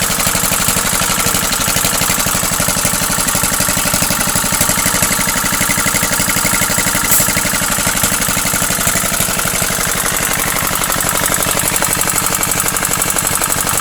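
Small engine driving a concrete mixer, running steadily with a rapid, even firing beat.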